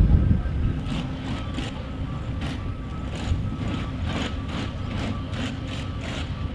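Heavy construction machinery running: a steady engine drone under a low rumble that is loudest at the start, with a string of short, sharp high-pitched ticks at irregular intervals.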